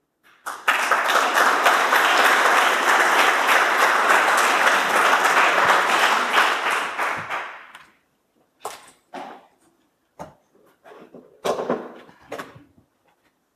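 Audience applauding for about seven seconds, then dying away; a few scattered knocks follow.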